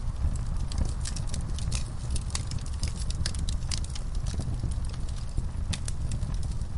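Wood fire crackling: irregular sharp pops and snaps, several a second, over a steady low rumble of burning.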